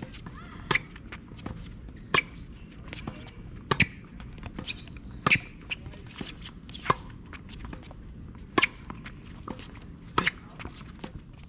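Tennis rally on a hard court: a sharp pop of racket striking ball about every one and a half seconds, seven in all, with lighter ticks of ball bounces and shoe steps between.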